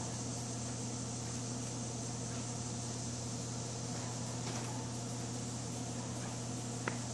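Steady mechanical hum with an even hiss, like a ventilation fan or lighting hum, with one faint tick near the end.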